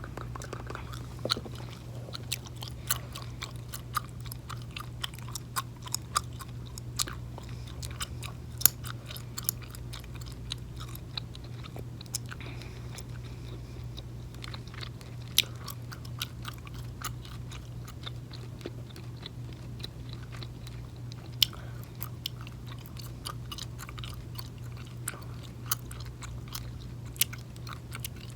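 Gum chewing: a steady, irregular stream of sharp mouth clicks and smacks, several a second, with an occasional louder snap.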